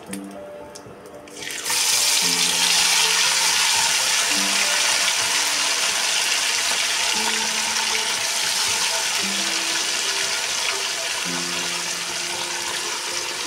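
Marinated small fish go into hot oil in an iron kadhai about two seconds in, setting off a loud, steady sizzle of deep-frying that eases only slightly. Soft background music plays underneath.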